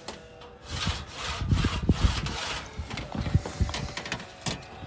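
Metal roof shingle and valley flashing sliding and scraping over each other and the roof underlayment as they are fitted by hand, with a few light knocks of the sheet metal and a sharp click near the end.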